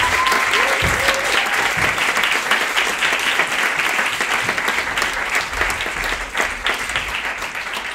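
Theatre audience applauding, the clapping slowly growing quieter.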